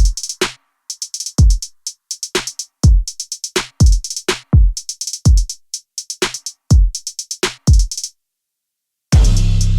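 Background music: a drum-machine beat of deep kicks and hi-hats. It cuts out about eight seconds in, and after about a second of silence a fuller section with a bass line comes in.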